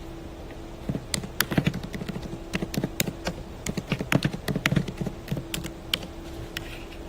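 Irregular quick taps and clicks close to the microphone, coming in clusters through most of the stretch, over a steady low hum.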